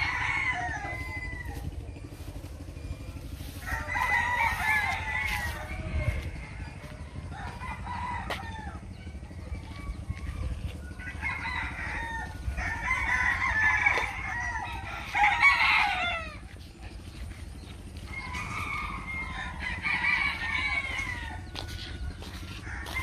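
Chickens calling in repeated bursts, clucking and crowing, over a steady low hum.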